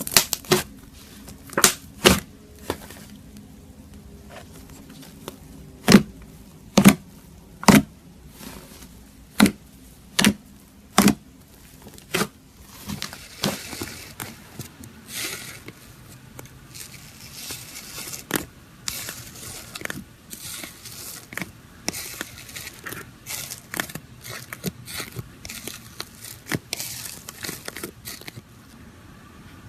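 Slime being worked by hand, with sharp clicks and pops at uneven intervals as air pockets burst. About halfway through this changes to a denser, steady crackling.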